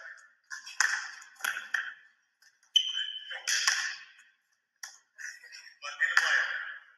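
Sneakers squeaking on a gym floor and a basketball being passed and caught during a running drill: a series of short, sudden slaps and squeaks, with one clear high squeak about three seconds in.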